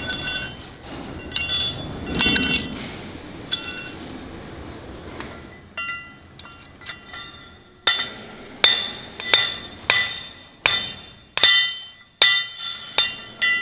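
Steel bearing driver being struck to drive a bearing into the machined bore of a tiltrotator housing: ringing metal-on-metal blows. A few scattered strikes come first, then a steady run of about nine, roughly one every two-thirds of a second, in the second half.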